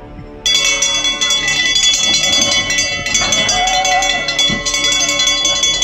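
Loud continuous metallic bell ringing, a rapid, steady clatter of strikes that cuts in suddenly about half a second in, with a brief shout near the middle.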